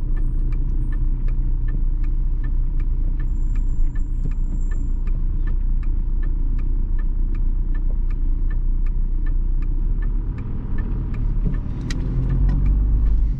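Car's turn-signal indicator ticking evenly, two to three ticks a second, with the left indicator on for a turn. Under it is the low, steady rumble of the engine and road inside the cabin.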